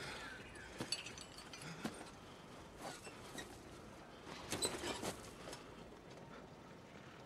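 Faint rustling with scattered light clicks and clinks, and a louder cluster of sharp clinks about four and a half seconds in.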